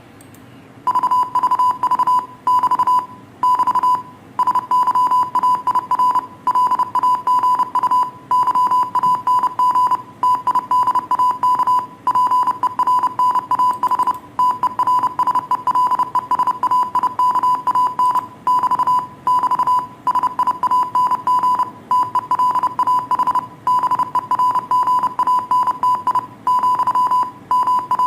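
Morse code: a steady mid-pitched beep keyed on and off in quick dots and dashes, starting about a second in.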